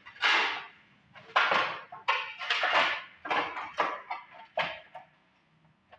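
A series of about eight short, sharp hissing bursts at an irregular pace, each fading within a fraction of a second, stopping about five seconds in.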